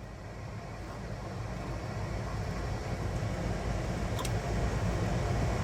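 Steady rushing airflow and engine noise in the cockpit of an Airbus A220-300 on approach, growing steadily louder, with a faint click about four seconds in.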